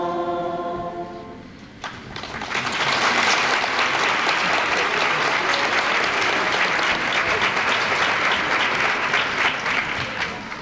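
A school choir's held final chord fades out, and about two seconds in the audience starts applauding. The clapping stays steady and full, then thins out near the end.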